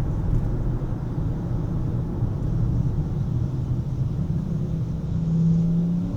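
A car on the move: a steady low rumble of engine and road noise. A low hum grows stronger for a moment near the end.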